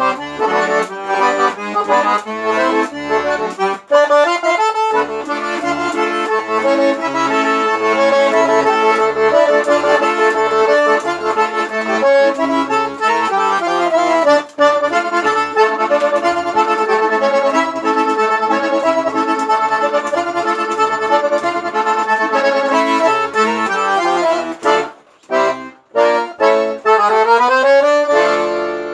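Accordion (sanfona) playing a xote, melody and chords over short left-hand bass notes on a steady beat. The playing breaks off briefly about 25 seconds in, then comes back with a rising run of notes near the end.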